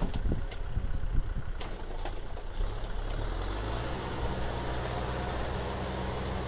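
Kubota M6040SU tractor's diesel engine running steadily while the tractor drives through mud. Wind buffets the microphone during the first couple of seconds.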